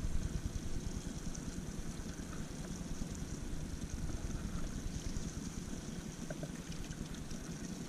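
Outboard motor on a flats skiff idling: a steady low rumble with a fast, even pulse.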